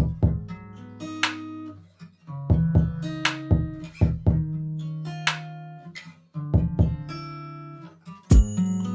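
Background music led by plucked guitar notes over a sustained low line.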